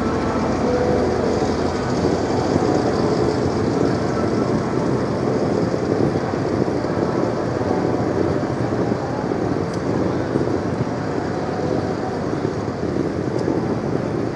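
Steady city street ambience on a pedestrian street: a constant din of distant traffic and people, with no single sound standing out.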